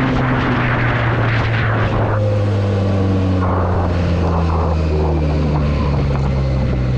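Benelli TNT 300's parallel-twin engine running steadily through its stock exhaust, holding an even pitch.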